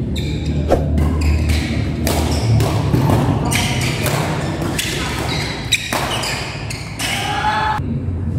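Badminton doubles rally: rackets striking the shuttlecock in a fast exchange, with shoes squeaking on the court floor and one sharp, loud hit about six seconds in. Music plays underneath.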